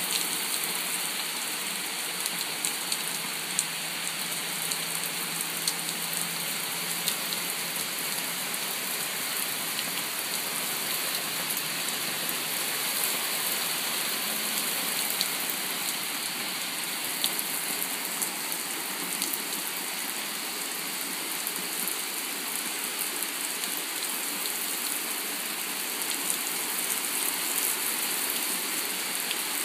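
Steady rain falling on a wooden deck and the trees beyond, with scattered sharper drop clicks.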